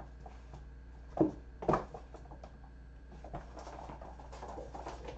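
Kittens moving about on a wooden floor: two soft thumps a little over a second in, then a stretch of light scratching and rustling, over a steady low hum.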